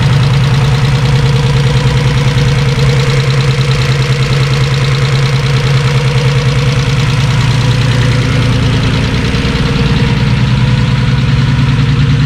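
Holden VL Calais Turbo's 3.0-litre RB30ET straight-six, newly fitted with a bigger turbo, idling steadily with an even, rapid exhaust pulse. It sounds absolutely nasty.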